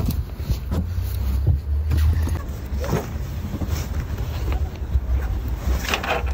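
Wind rumbling on the microphone, heaviest in the first couple of seconds, over the rustle and light knocks of nylon duffel bags and a strap being handled.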